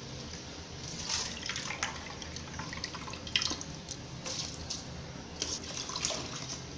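Raw rice being tipped into the liquid in a pressure cooker and stirred, making small wet splashes and drips, with scattered light taps of a steel ladle against the pot.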